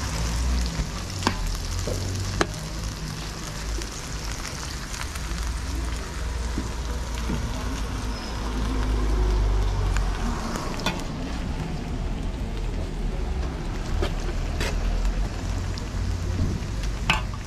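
Beef strips, green beans and onion sizzling in a large shallow pan, with a metal spoon stirring through them and a few sharp clicks of the spoon against the pan.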